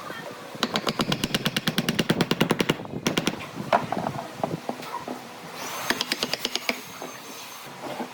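A workshop tool making rapid, evenly spaced clicks, about ten a second for two seconds, then a few separate knocks and a second shorter run of clicks with a high whine.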